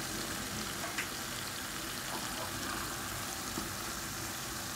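Spinach and mutton curry sizzling steadily in a pot as it fries, with one light tap about a second in.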